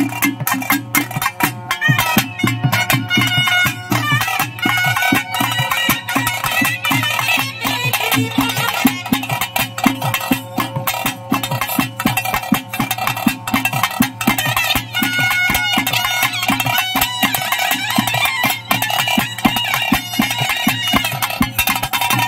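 Live traditional ritual music: a reed pipe plays a wavering melody over a steady drone, with fast, continuous drumming.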